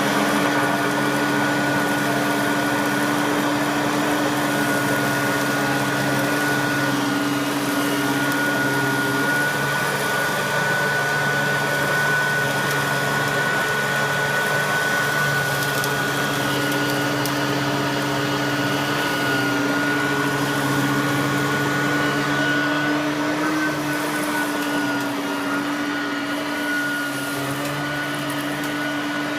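Riccar vacuum cleaner running steadily at full speed with its brush roll agitating the carpet: an even motor hum with a high whine on top.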